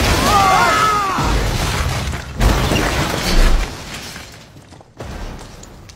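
Several people yelling together, then a dune buggy crashing down a cliff face: a run of heavy booming impacts with a rumble beneath, loudest about two and a half and three and a half seconds in, then dying away.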